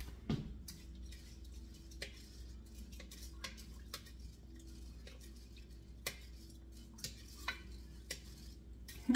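Light, irregular clicks and taps of rice and fingers or a utensil against a stainless steel cooking pot as the rice and water are settled in it, over a faint steady hum.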